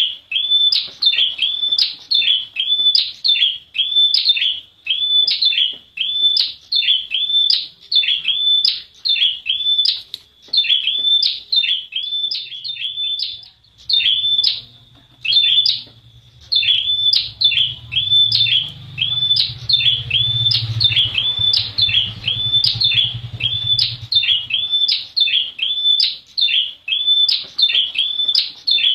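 Prenjak wulung, a prinia, calling over and over: a fast string of sharp, high chirps about two a second, broken by a short pause about halfway through.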